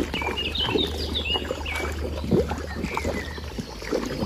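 Birds chirping in short repeated calls over a steady low hum, with scattered light knocks.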